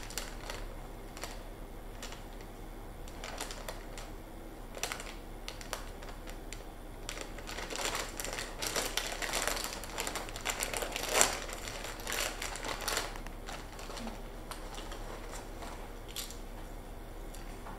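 Plastic chip bag crinkling and crackling as it is worked open by hand, busiest from about eight to thirteen seconds in, with one sharp, louder crackle near the middle.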